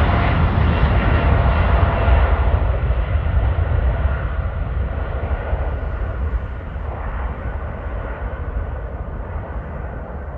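Airliner engine noise, a loud low rumble with a steady whine, fading gradually as the aircraft moves away.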